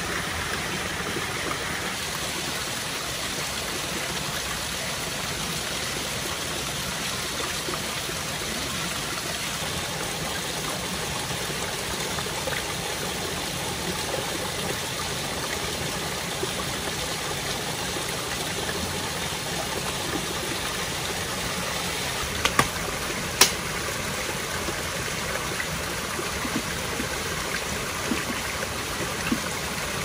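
Steady rush of running water. Three sharp clicks come about three quarters of the way in.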